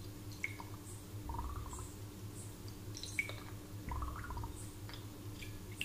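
Water dripping and trickling into a glass of water: a few sharp plinks and short bubbly gurgles every second or two, over a steady low hum.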